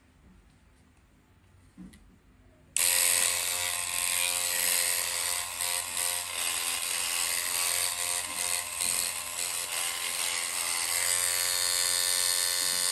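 Handheld electric dreadlocks machine switched on about three seconds in. Its motor then runs steadily while the hook is worked through a lock of hair.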